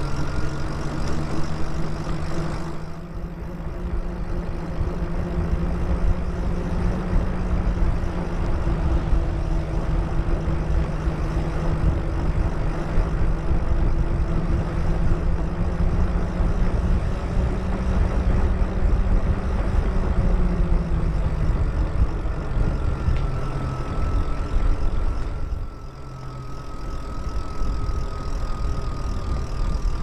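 Lyric Graffiti electric bike underway: a heavy rumble of wind and tyre noise with the electric motor's steady whine, which drifts slowly up and down in pitch with speed. The rumble and whine drop away briefly twice, about three seconds in and again near the end.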